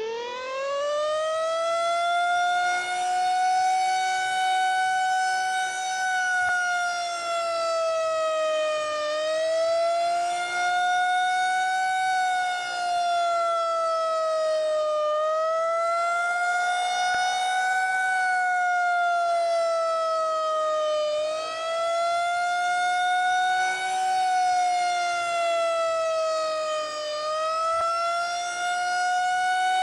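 Federal Signal 2001-130 rotating electromechanical warning siren sounding during a test. It winds up steeply to full pitch right at the start, then holds a loud wail whose pitch and loudness rise and fall gently about every six seconds.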